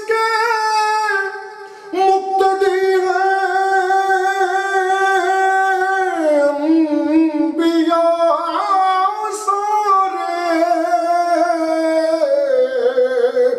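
A man singing an Urdu devotional salam unaccompanied, drawing out long held notes with no words. The pitch steps down about six seconds in and again near the end, after a brief dip early on.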